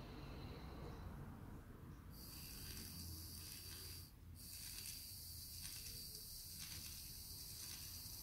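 Small electric hoist motor on a model jib crane running with a thin high-pitched whine and hiss as it lowers the hook. It starts about two seconds in, stops briefly about four seconds in, then runs on.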